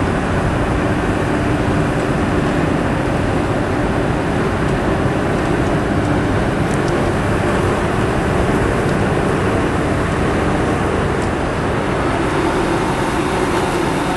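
Portable fire pump's engine running steadily under load while it drives a long-range water stream, with a continuous rushing noise from the jet.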